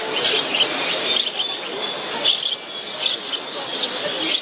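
Many caged songbirds chirping and singing at once, over the steady murmur of a crowd talking.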